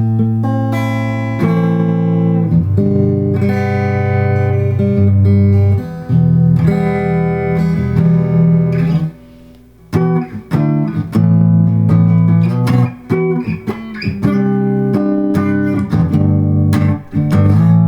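Les Paul-style kit electric guitar played on its neck pickup: chords strummed and left to ring, changing every second or two, with a short break about nine seconds in.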